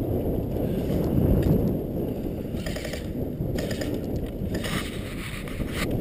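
Wind buffeting the camera's microphone: a steady, low rumble.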